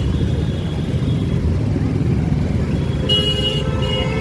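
Dense city traffic at a crawl: a steady low rumble of idling and creeping motorcycle, scooter and car engines. A vehicle horn honks about three seconds in, then gives a second short honk near the end.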